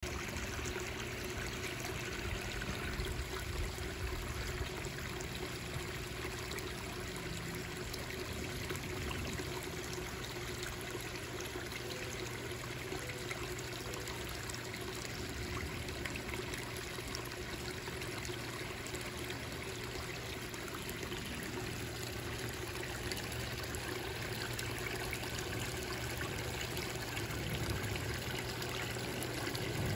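Water from a small koi-pond waterfall trickling and splashing steadily into the pond.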